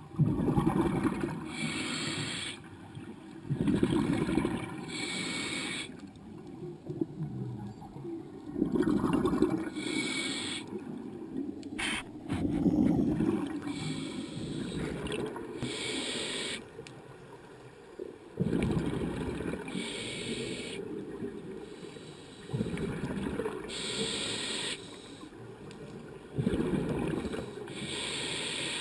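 Scuba diver breathing through a regulator underwater: hissing inhalations alternate with rumbling, gurgling bursts of exhaled bubbles, repeating every few seconds. There is a brief sharp click about twelve seconds in.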